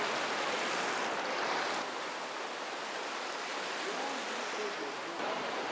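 Surf breaking and washing onto a beach: a steady rushing hiss of waves, which changes abruptly about two seconds in.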